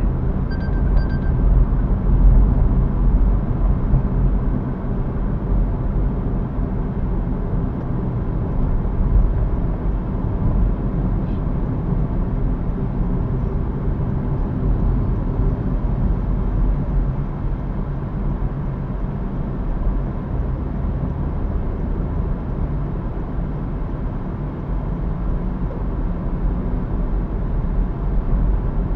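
Car driving in traffic, heard from inside the cabin: a steady low rumble of engine and road noise.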